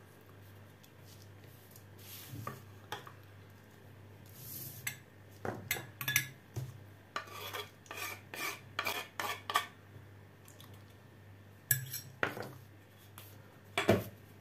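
A kitchen knife and a wooden cutting board tapping and scraping against a glass bowl as chopped dill is pushed into the sauce: a quick run of clicks and knocks in the middle, then two sharp knocks near the end as things are set down on the counter.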